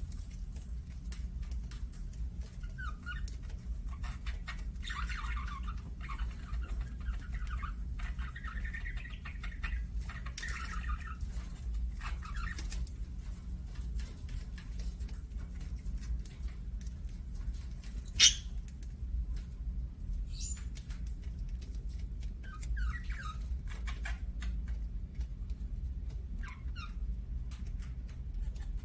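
Budgerigars chirping and warbling in short bursts, busiest in the first half and again near the end, over a steady low hum. Scattered small clicks run through it, with one sharp loud click about halfway.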